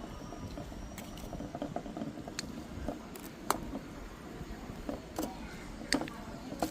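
Restaurant room ambience: a steady low background hum with a handful of short, sharp clicks and clinks spread through it.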